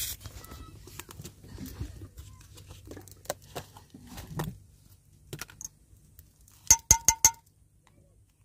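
Small handling clicks and knocks as a plastic tub's lid is opened and a metal spoon goes into the fat, then four quick ringing metallic clinks of the spoon against a metal cup or tub about three-quarters of the way through.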